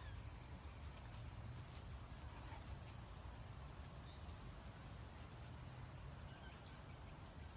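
Faint outdoor ambience with a steady low rumble. From about three to five and a half seconds in there is a quick run of high chirps.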